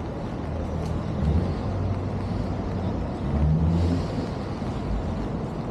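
Street traffic, with a motor vehicle's engine rumbling past over general city noise; the engine swells about a second in and again around three and a half seconds in.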